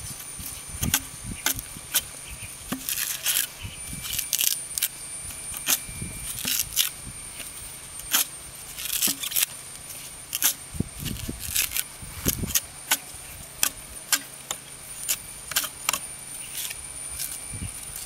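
Coconut husk being torn off by hand on a fixed metal dehusking spike: an irregular run of dry cracking and ripping from the fibre, with a few dull knocks as the nut is driven onto the point.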